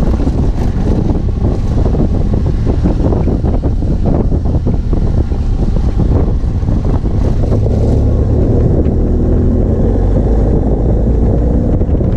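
BMW F800GS Adventure's parallel-twin engine running while riding a rough dirt road, under heavy wind noise on the camera microphone, with frequent knocks and rattles from the bumpy surface. From about two-thirds of the way in the engine note comes through more clearly as a steady hum.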